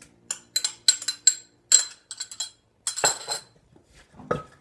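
Pestle knocking and clinking in a mortar as som tam ingredients are pounded and mixed: a string of irregular sharp knocks, with a denser burst about three seconds in.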